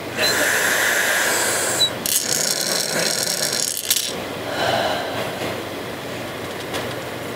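Air drawn hard through an incentive spirometer's mouthpiece and tube in a lung-expansion breathing exercise: a rushing sound in two long pulls, the first lasting nearly two seconds and the second ending about four seconds in, then a weaker one.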